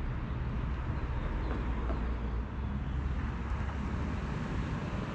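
Steady low background rumble, mostly deep, with a fainter hiss above it and no distinct events.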